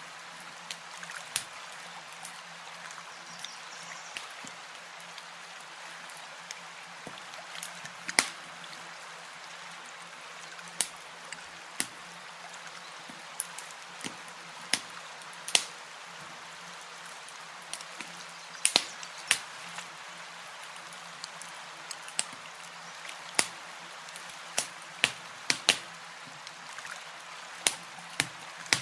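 Campfire crackling: irregular sharp pops and snaps, a few every second or two, over a steady soft hiss.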